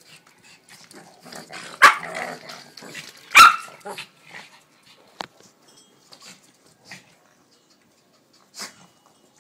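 Pug barking: two sharp barks, about two seconds in and again a second and a half later, then only small faint sounds.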